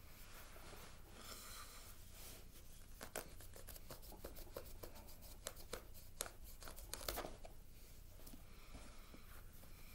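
Gerber Principle knife blade slicing through denim jeans: a quick run of short cutting and ripping strokes through the fabric from about three seconds in to past seven, with cloth rustling around them.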